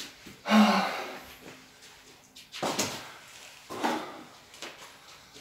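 Swinging a longsword and a claymore at once: four short rushes of breath and motion about a second or two apart, the first the loudest.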